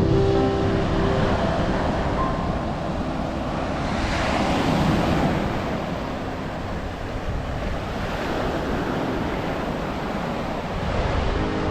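Ocean surf washing onto a beach, with wind rumbling on the microphone; a wave swells up about four seconds in.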